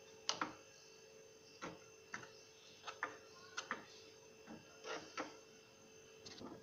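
Steel spoon clinking and scraping against a small steel tadka pan while stirring butter as it melts: about a dozen light, irregular clinks over a faint steady hum.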